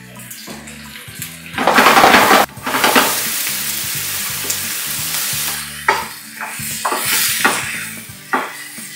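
Porcini mushrooms, green peppers and sausage frying in oil in a pan: a sudden loud burst of sizzling about one and a half seconds in settles to a steady sizzle. Toward the end a wooden spatula stirs the food, with several short knocks and scrapes against the pan.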